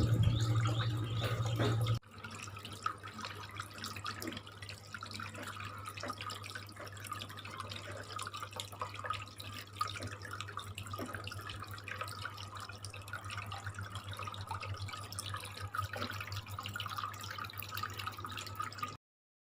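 Homemade cement fountain running: water trickling and dripping steadily, over the constant low hum of its submersible aquarium pump. The sound is louder for the first two seconds, then drops to a quieter, steady trickle.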